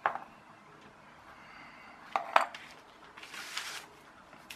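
Light clicks and taps of a small printed circuit board being handled and set down on a hardboard work surface: one at the start and two sharper clicks a little after two seconds, the loudest of them. A brief rustle follows about a second later.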